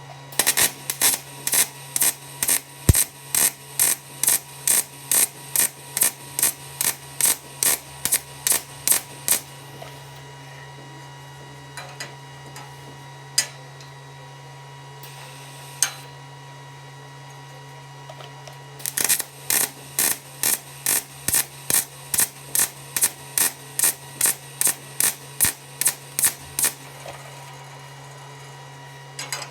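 MIG (semi-automatic) welder arc struck in short repeated bursts, about three a second, the stitch technique used on thin-walled steel profile tube to keep from burning through. Two runs of crackling pulses are separated by a pause of about nine seconds, with a few single clicks in it, over a steady low machine hum.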